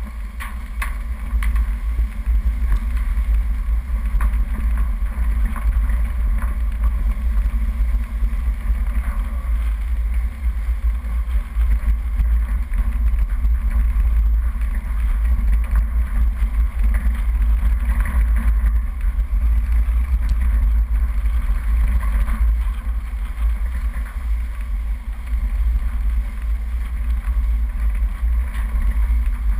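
Off-road 4x4 driving down a dirt forest track: a steady low rumble of engine and tyre noise, with a few faint knocks from bumps in the track.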